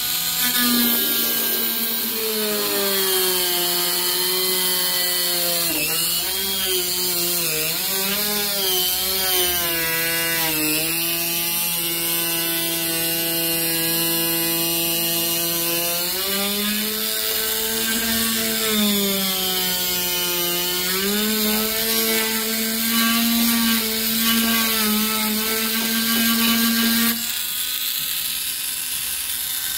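Dremel rotary tool running at speed while its bit mills slots in a fiberglass hull through a brass guide template. Its whine sags in pitch several times as the bit bears into the fiberglass and rises again as it frees up, and it stops near the end.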